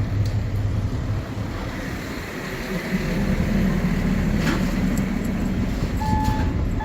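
Fire truck engine running close by, its low rumble growing louder about three seconds in, with two short backup-alarm beeps near the end.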